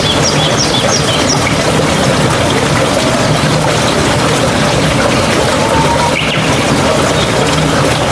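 Steady rush of flowing water, with a bird chirping a quick run of short notes in the first second.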